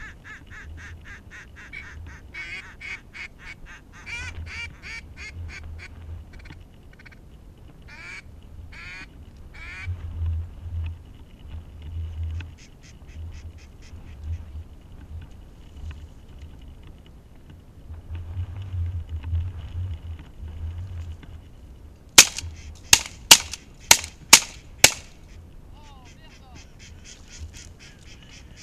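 Ducks quacking in fast runs of calls during the first ten seconds and again near the end. A little over twenty seconds in come six sharp, very loud cracks about half a second apart.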